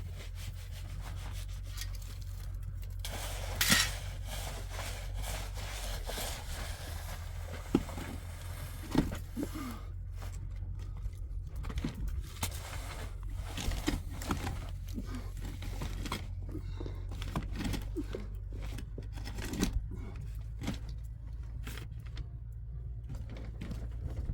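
Irregular scraping and rubbing with scattered light knocks, typical of handwork on wood and building materials, with one louder scrape about four seconds in. A steady low rumble runs underneath.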